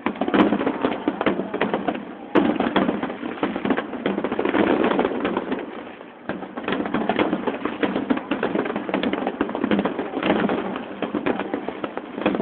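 Aerial fireworks finale: many shells bursting in quick succession, a dense run of bangs and crackle that eases briefly about six seconds in.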